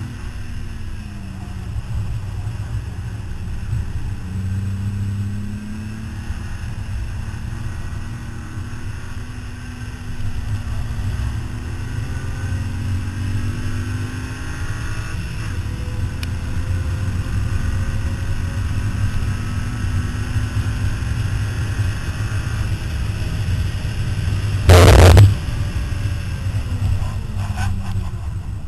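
Car engine driven hard at speed, its pitch rising and falling as it accelerates and slows through corners, over steady wind and road noise. About 25 seconds in, a short, very loud burst of noise covers everything for about half a second.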